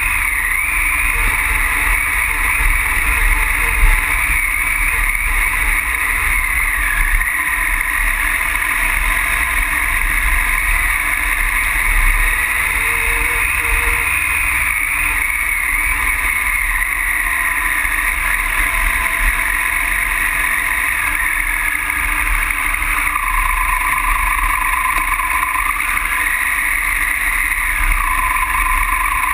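Triumph Tiger Explorer's three-cylinder engine running under way off-road, with heavy wind buffeting on the camera microphone. The engine note falls and rises again twice in the last few seconds.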